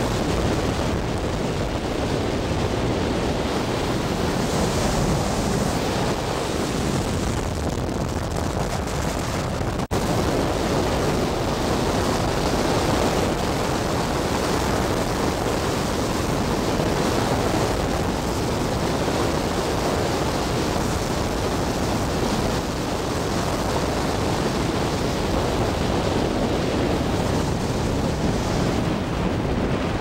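Steady rushing wind and road noise heard from inside a moving car, with wind buffeting the microphone. The sound cuts out for an instant about ten seconds in.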